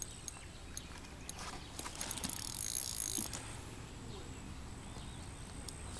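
Fishing reel's drag ticking as a hooked fish pulls line, with a short dense run of rapid clicks a little over two seconds in.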